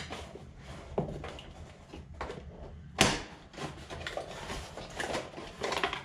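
Hands working at the cable ties that hold an RC truck in its cardboard box: rustling plastic and scattered light clicks and knocks, with a sharp loud click about three seconds in.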